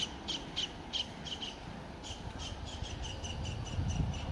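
A bird calling in a string of short repeated notes, spaced out at first and coming quicker after about two seconds. Under it, the low rumble of an approaching train grows toward the end.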